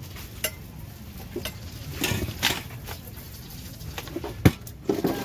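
Scattered knocks and clinks of kitchen utensils and containers being handled during food preparation, with the loudest sharp knock about four and a half seconds in.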